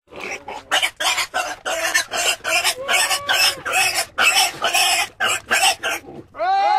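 A rapid series of harsh animal calls, about three a second, stopping shortly before the end as music begins.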